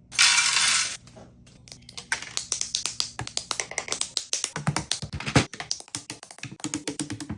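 A plastic Lego parts bag ripped open in one short loud tear, then many small plastic bricks clicking and clattering against each other and the table as they are tipped out and handled.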